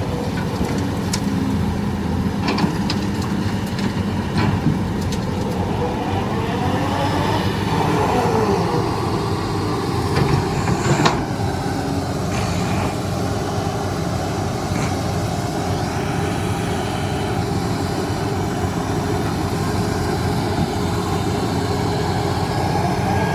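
Heavy earthmoving machinery running steadily, its engine pitch rising and falling, with a few short knocks or clanks, the loudest about 11 seconds in.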